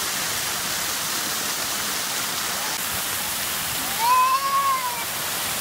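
Splash-pad fountain jets spraying steadily onto wet concrete. About four seconds in, a young child lets out one high squeal lasting about a second, its pitch rising then falling.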